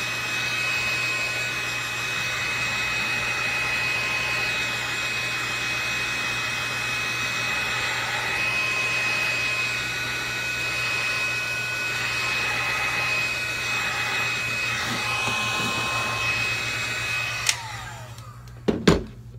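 Heat gun blowing hot air over the top of a soy candle to remelt the frosted wax surface: a steady rush of air with a high whine. Near the end it clicks off and the whine falls away as the motor winds down, followed by a couple of knocks.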